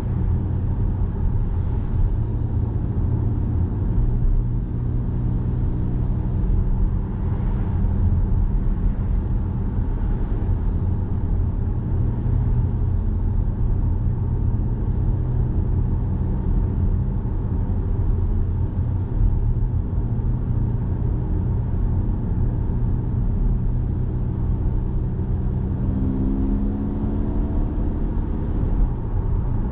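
Car interior driving noise: a steady low rumble of engine and road noise with an even engine hum. Near the end the engine note rises as the car accelerates.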